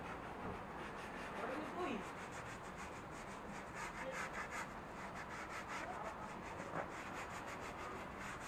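Small scrub brush scrubbing the back of a leather car seat, faint rapid back-and-forth scratching strokes that start a couple of seconds in.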